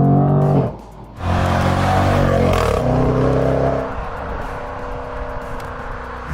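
Jaguar F-Pace SVR's supercharged 5.0-litre V8 running loud. Its note drops away briefly about a second in, comes back rising hard, then settles to a quieter steady run for the last couple of seconds.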